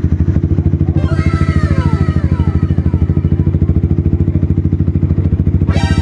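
Yamaha Sniper 155's single-cylinder engine idling steadily through a Mody5 Powerpipe carbon aftermarket exhaust: an even, fast, low pulse that holds the same speed throughout.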